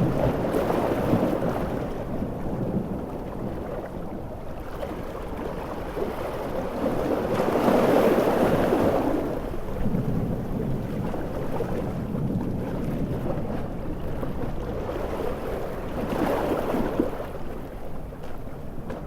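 Large ocean waves surging and breaking in swells about every eight seconds over a continuous rushing wash of surf.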